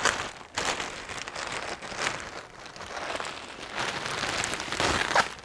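Clear plastic packaging bag crinkling and rustling as a handbag is worked out of it. The crackle is irregular, with louder bursts at the start, about two seconds in, and near the end.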